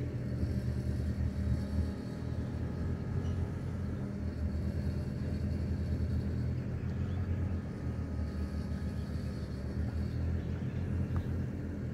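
Engine of a river cable ferry running as it crosses, a steady low drone with a faint thin whine above it.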